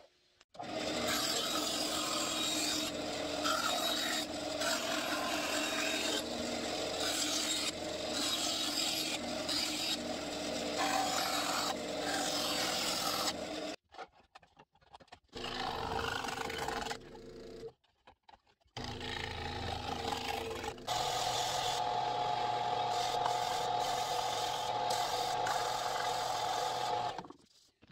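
A power tool with a humming motor cutting and working the edges of a Kydex holster shell, a steady rasp of tool on plastic that stops abruptly a few times.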